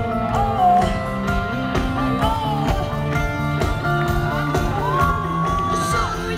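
A rock song playing with guitars and drums, a voice singing sliding, wordless notes and holding one long note near the end.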